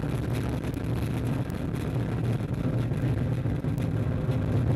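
Ariane 5 rocket's engines, its solid boosters and Vulcain core stage, during the ascent: a steady, continuous rumble.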